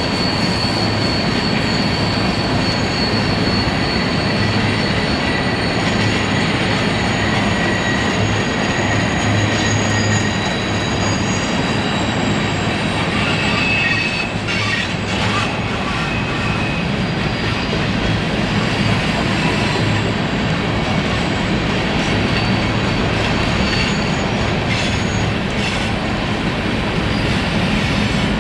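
Freight train rolling past with its steel wheels squealing against the rails, a steady rumble of cars with thin high squeals coming and going.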